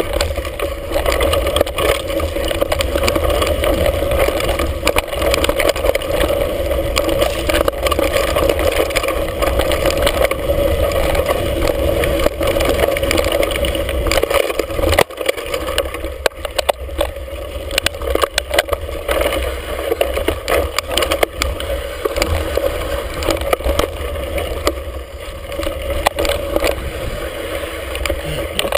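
Mountain bike descending a rough dirt singletrack, heard from the handlebars: a steady rush of wind and tyre noise with frequent knocks and rattles as the bike bounces over bumps.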